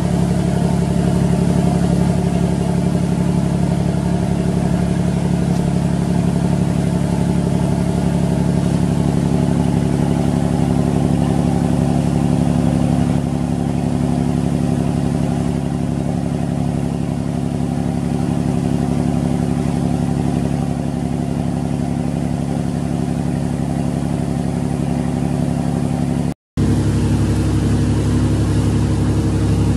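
Riverboat engine running at a steady drone while under way. There is a short gap near the end, after which the tone is slightly changed.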